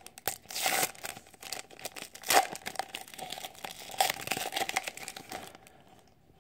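Wrapper of a 2013-14 Panini Select hockey card pack crinkling and tearing as it is opened by hand, in a run of sharp crackles that dies down near the end.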